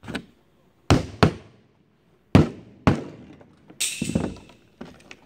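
Claw hammer driving tacks through new planking on a wood-and-canvas canoe hull: a run of about six sharp, irregularly spaced blows, the loudest a quick pair about a second in, with a longer, noisier hit a little before four seconds in.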